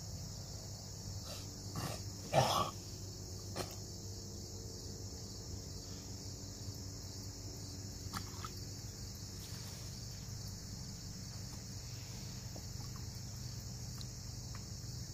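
Quiet river-side background: a steady low hum and high hiss, with a few soft short sounds of water moved by hands and a large catfish held at the boat's side, the loudest about two and a half seconds in.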